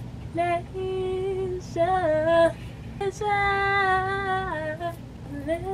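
A woman singing unaccompanied, a few long held notes, the longest held about a second and a half near the middle before its pitch drops.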